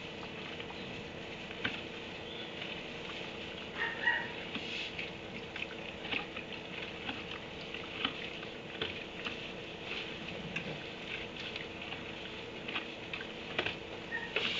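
Scattered rustles and light crackles of straw bedding as a donkey noses and paws through it, over a steady low hum. A short squeak comes about four seconds in.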